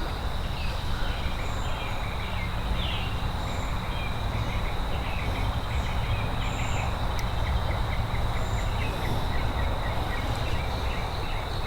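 Outdoor creek-side ambience: a steady high insect drone, like crickets, over a constant low rushing noise, with small scattered chirps.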